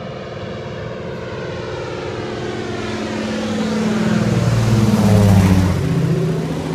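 Floatplane's piston engine and propeller running at full throttle in a low flyby, growing louder as it comes in and loudest about five seconds in as it passes overhead, its pitch then dropping as it moves away.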